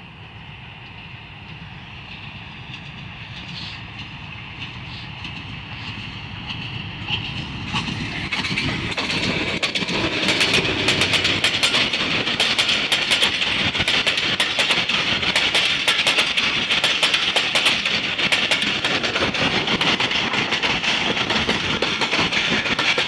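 Passenger train approaching and passing at about 60 km/h. Its rumble grows louder for about the first eight seconds, then the coaches go by close at hand with a rapid, continuous clatter of wheels over the rail joints.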